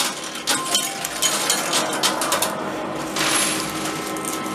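Coin pusher machine: a run of sharp metallic clicks and clinks from coins and the pusher mechanism, then from about three seconds in a dense, continuous clatter of coins spilling and sliding as the push drops coins off the front.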